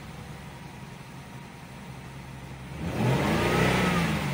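Ford Escape V6 engine idling, then revved once about three seconds in, its pitch rising and falling back. The engine is misfiring on cylinders 3 and 5 (codes P0303 and P0305), so it jumps and hesitates as it accelerates.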